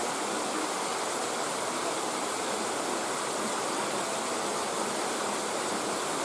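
Waterfall water rushing steadily, an even unbroken roar.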